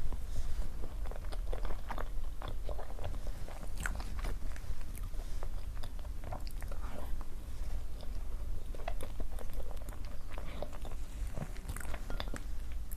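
A person biting and chewing food close to the microphone: irregular wet clicks and soft crunches.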